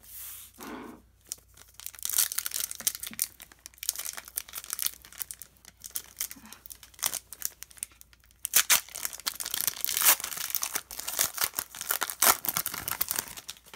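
Foil wrapper of a Panini Excalibur basketball card pack being torn open and crinkled by hand: a long run of sharp, irregular crackles and rustles that starts about two seconds in.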